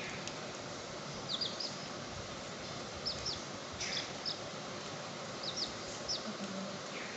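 Baby chicks peeping: short, high, falling cheeps, about ten in all, some single and some in quick pairs and threes, over a steady low hiss.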